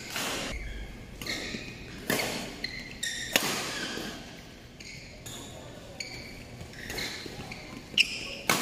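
Badminton rackets hitting a shuttlecock in a rally: several sharp smacks at uneven intervals, each with a short echo from the large hall, the loudest about three seconds in and near the end.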